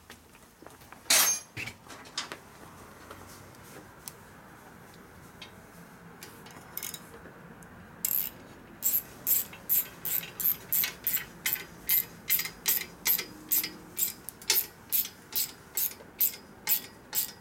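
Ratchet wrench clicking in a steady rhythm, about two to three clicks a second, from about halfway through, as an exhaust header flange nut is run onto its stud on a Harley Sportster; the nut, its threads freshly chased, goes on fairly easily. Before that, a few scattered clicks and knocks, one loud near a second in.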